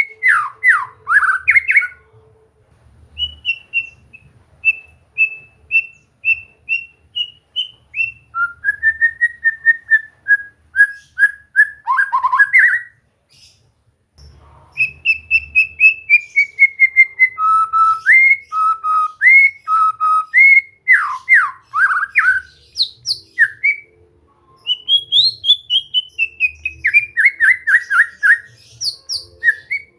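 White-rumped shama singing: loud, clear whistled phrases made of fast runs of repeated notes and sliding notes, with short pauses between song bouts.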